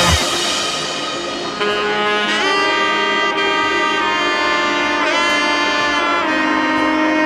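Background music: a melody of long held notes with upward slides into them, after a loud drum passage stops at the start.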